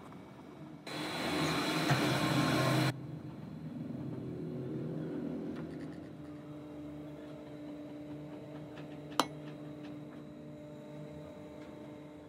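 An abrasive pad held against a segmented wooden bowl spinning on a lathe gives a loud hiss for about two seconds. After that the lathe runs on with a steady hum. One sharp click comes near the end.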